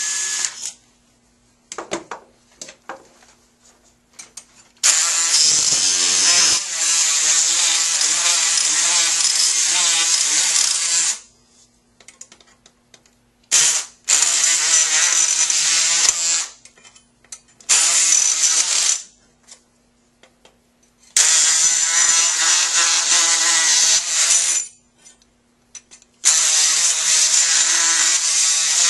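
Surgical power saw cutting a synthetic model femur through a metal femoral cutting block, running in bursts of one to six seconds with short pauses between cuts. A brief burst from the powered handpiece driving a fixation pin comes at the very start.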